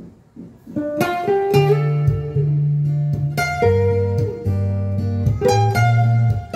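Recorded music played back from a Sony MXD-D1 deck: a new track begins about a second in, with plucked guitar notes over deep sustained bass notes.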